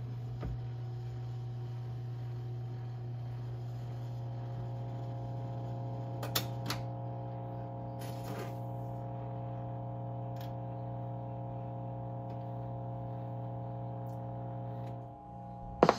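Wurlitzer 41 countertop jukebox's record changer cycling: a steady hum from the running mechanism, with a few scattered mechanical clicks as the record is brought to the turntable. The hum dips just before the end, followed by a sharp click as play begins.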